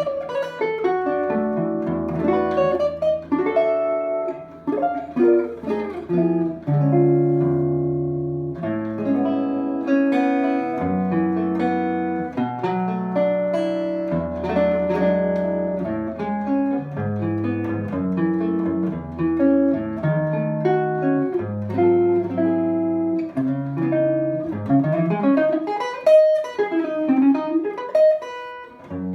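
1950 Crafton Model 72 guitar played through a 1967 De Armond 1100 pickup: a steady run of chords and single-note lines over low bass notes, with wavering, bent notes near the end.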